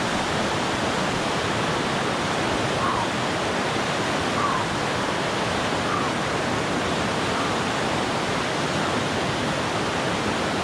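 Fast whitewater river rushing over rocks, a steady even roar of water.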